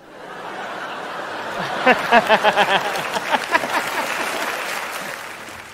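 Studio audience laughing and applauding, swelling up and then fading away, with a man's hearty laughter over it: a rapid run of 'ha-ha-ha' for about two seconds, starting near the second second.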